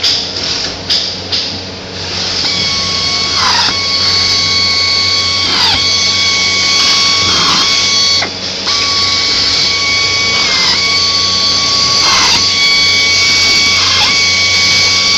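Power screw gun whining steadily as it drives screws into a roof skylight's flange, its pitch dipping briefly every second or two as each screw seats. A few sharp clicks come just before the whine starts.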